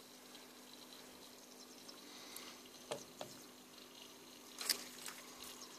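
A few faint sharp clicks and light rustles of handling over a steady low hum, the loudest click a little before the end.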